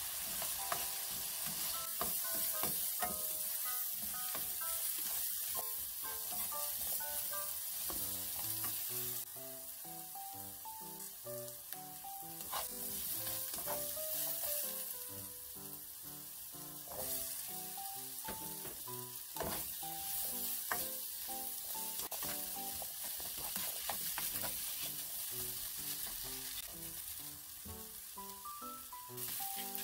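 Cubes of daikon radish and chikuwa sizzling in sesame oil in a nonstick frying pan, with the scrape and click of a spatula stirring them. A light background melody plays over the frying.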